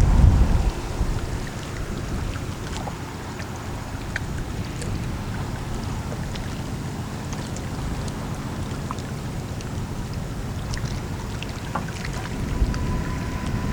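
Steady low rumble of a passing lake freighter's engine, with wind buffeting the microphone hard in the first second and again near the end. Faint scattered clicks, and a thin steady tone comes in during the last couple of seconds.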